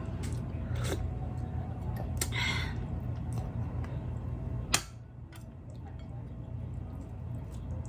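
Eating at a table: light clicks of utensils against a dish, a short noisy sound about two seconds in, and one sharp click a little past halfway, over a steady low hum.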